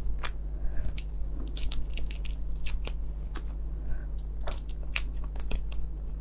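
Shell of a large cooked red shrimp being cracked and peeled off by hand: a run of irregular crisp clicks and crackles, close-miked, over a steady low hum.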